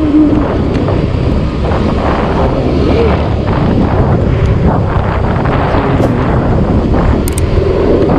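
Wind rushing over the microphone of a moving motor scooter, with engine and road noise beneath it. There are a couple of sharp clicks near the end.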